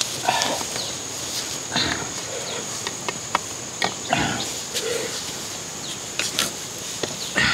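Green bamboo poles knocking and rattling against each other as a bamboo grill rack is handled and fitted together, with several sharp clicks and short clatters. A steady high insect drone runs underneath.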